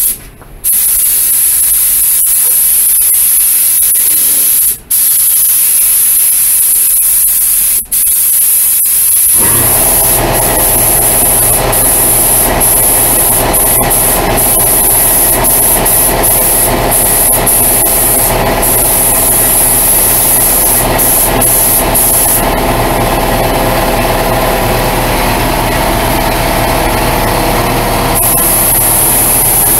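Air spray gun hissing as a second coat of base-coat paint goes onto a car bumper, cut off twice briefly in the first eight seconds when the trigger is let go. About nine seconds in, a steady motor hum starts and runs on under the hiss.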